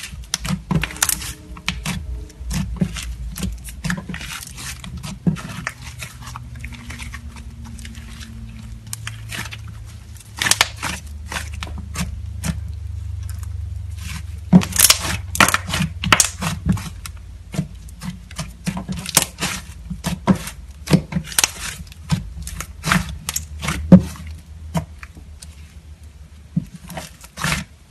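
Slime with clay mixed in being kneaded and squished by hand, giving a dense run of sticky pops and crackles over a low steady hum.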